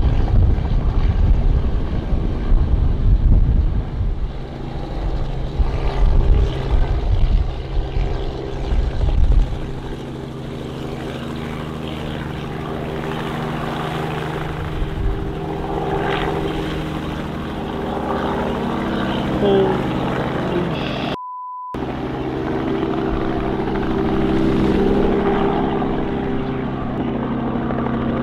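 Robinson R44 helicopter running, its piston engine and rotor heard. Heavy low rumbling buffets the sound for about the first ten seconds, then it settles into a steadier hum.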